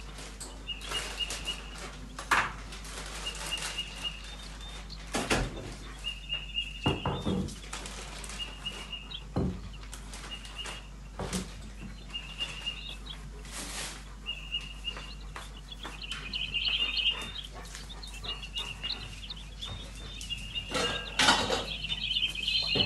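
Eurasian jay fledgling calling over and over, a short call roughly every second or so, busier near the end. Scattered knocks and rustles are mixed in.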